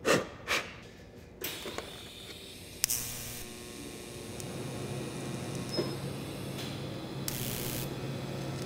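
TIG welding arc tacking steel parts: a steady electric hiss with a low hum, and two brighter, sharper hisses about three and seven seconds in. A couple of knocks at the very start as the parts are set in place.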